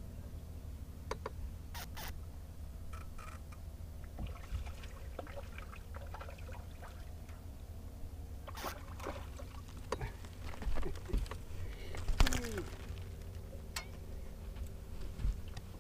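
Wind rumbling on the microphone and water lapping at a bass boat, with scattered clicks of fishing tackle. There are splashy bursts in the second half as a hooked bass is fought at the boatside and lifted aboard.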